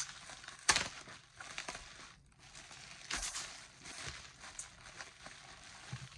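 Bubble wrap and packing tape being pulled off a package: irregular crinkling and rustling, with a sharp snap about three quarters of a second in.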